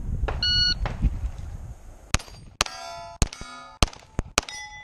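A shot timer's electronic start beep, then about a second and a half later a fast string of about six pistol shots. Each shot is followed by the ringing of struck steel target plates at their own set pitches.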